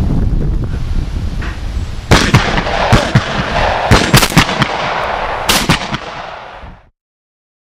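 A rapid string of about ten shotgun shots in under four seconds, over a low rumble, with the sound cutting off abruptly near the end.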